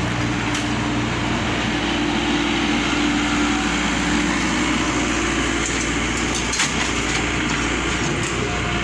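A truck engine running steadily under a constant rumbling noise, with one short knock about six and a half seconds in.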